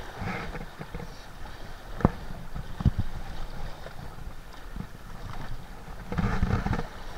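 Wind rumbling on the microphone and sea water washing against shoreline rocks, with a few sharp clicks about two and three seconds in. A louder rush of noise comes near the end.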